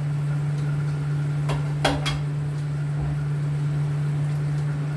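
Utensils clinking against a metal cooking pot: three sharp knocks about a second and a half to two seconds in, then a few faint taps, over a steady low hum.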